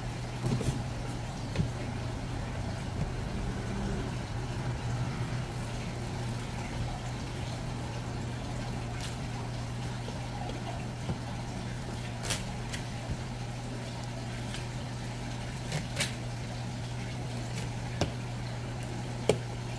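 A steady low machine hum, with a few sharp clicks or taps scattered through.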